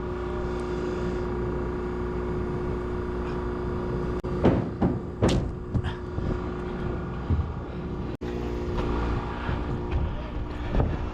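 A motor running with a steady hum, and a few sharp knocks about four to six seconds in.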